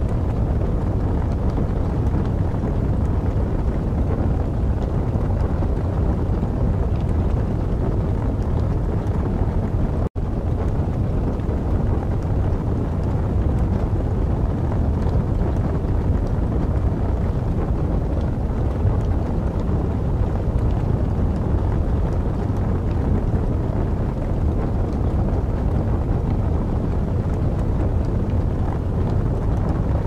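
Burning wood fire: a steady low rushing noise like wind, with faint scattered crackles on top. The sound cuts out for an instant about ten seconds in.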